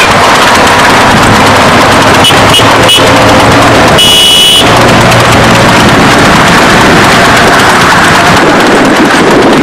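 Loud, steady roar of wind and road noise from a vehicle driving alongside a trotting tanga horse. Three short horn beeps come about two seconds in, and a longer horn blast about four seconds in.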